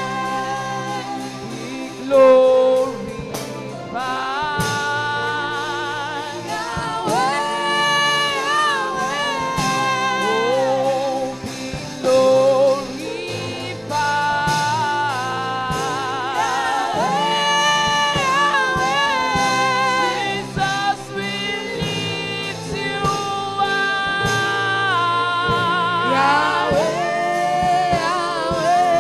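A woman singing a gospel worship song into a microphone, holding long notes with a wide vibrato, over steady held accompaniment notes.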